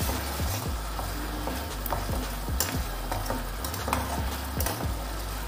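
A plastic spatula stirring and scraping thick, bubbling crab gravy in a non-stick pan, in irregular strokes with soft clicks against the pan, over a steady low hum.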